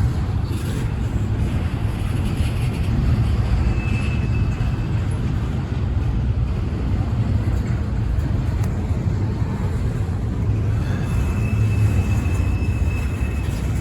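Freight train rolling past a grade crossing: a steady low rumble of wheels on rail, with a faint high-pitched squeal coming and going.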